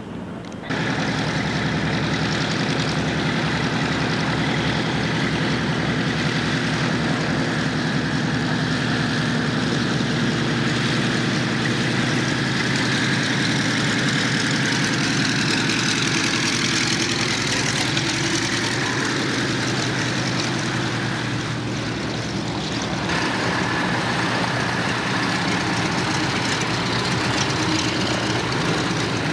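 Republic P-47 Thunderbolt's 18-cylinder Pratt & Whitney R-2800 radial engine running at low taxiing power, a steady propeller-driven drone. The sound changes abruptly about three-quarters of the way through as a second P-47 is heard.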